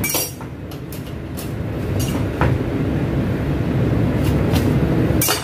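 A steady low rumble, with a few light clicks and taps as a knife cuts a lemon in half.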